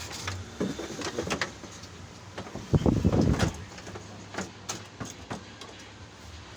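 Scattered clicks and knocks with a brief rustling clatter about three seconds in: plastic parts of an electronic keyboard's opened case being handled during disassembly, over a faint steady hum.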